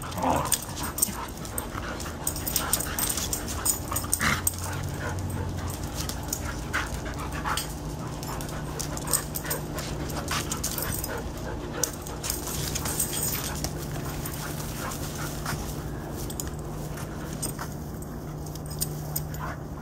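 Two dogs play-fighting: scuffling with many short sharp noises and brief dog vocalisations, over a steady low hum.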